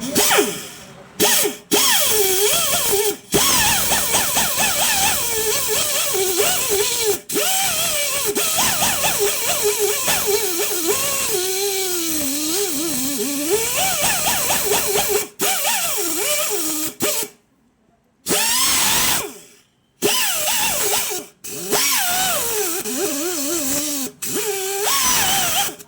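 Handheld power buffer whining as it grinds the tyre's inner lining around the puncture, roughening it for a patch. Its pitch wavers up and down as it is pressed against the rubber, and it stops and starts again many times.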